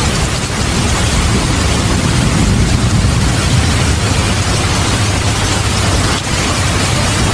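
Heavy rain falling with a steady hiss, with a deep rolling rumble of thunder underneath that swells a little in the first half.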